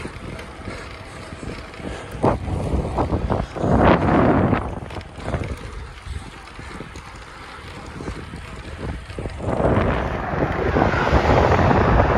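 Wind buffeting the microphone of a camera on a moving bicycle, a steady low rumble that swells about four seconds in and again near the end.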